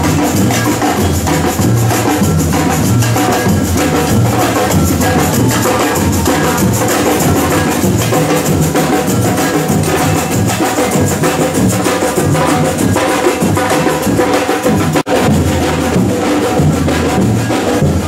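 Samba-style street percussion band playing a driving drum rhythm, with shakers and sustained instrument notes over the beat. The sound cuts out for an instant about three-quarters of the way through.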